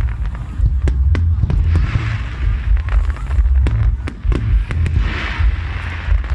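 Aerial fireworks display going off: a quick succession of sharp bangs and crackles over a steady low rumble.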